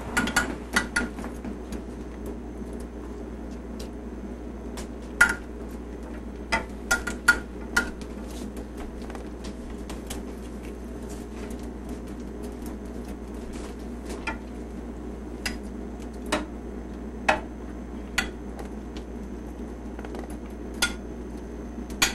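A metal spoon clinking against a saucepan and a glass baking dish as tomato sauce is spooned over layered eggplant slices, in scattered, irregular sharp taps over a steady low hum.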